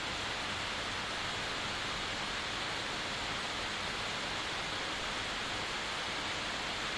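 Steady, even hiss of background noise with no other sound.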